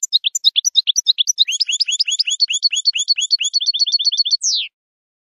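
European goldfinch singing: a fast twittering run of sharp, high notes that quickens into a rapid trill and ends on a single falling note.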